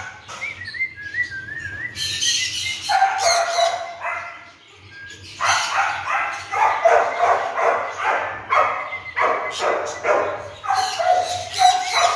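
Labrador puppies yapping and barking in quick runs of short, sharp calls, with a high wavering whine in the first couple of seconds.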